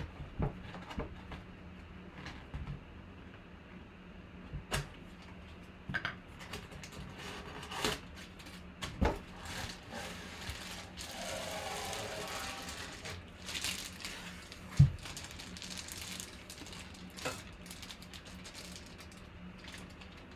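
Paper wrapping and a plastic sleeve rustling and crinkling as a full-size baseball bat is unwrapped by hand, with scattered light taps. There is one sharp knock about fifteen seconds in.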